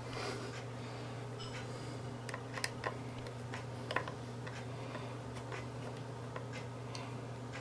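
Light scattered clicks and scrapes of a small screwdriver working at the screws and plastic case of an Android TV box, the sharpest clicks between about two and a half and four seconds in, over a steady low hum.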